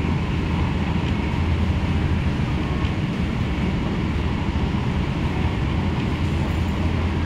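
MTR K-Train (Hyundai Rotem electric multiple unit) running at speed, heard inside the passenger car: a steady low rumble of running noise from the wheels and rails.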